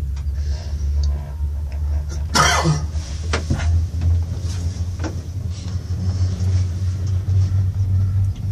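Steady low rumble inside a moving gondola cabin as it runs along the cable. A brief loud rattle comes about two and a half seconds in, followed by a couple of lighter knocks.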